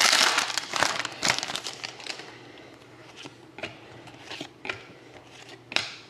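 Plastic wrapping of a trading-card pack being torn open and crinkled. Dense crinkling comes first, then eases into scattered short crinkles and clicks after about two seconds.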